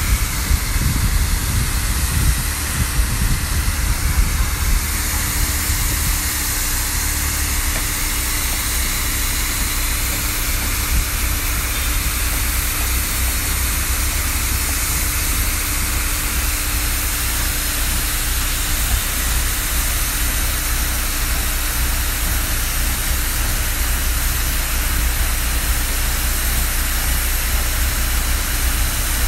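Kato mini excavator's diesel engine running steadily close by, a low rumble under a loud, even hiss.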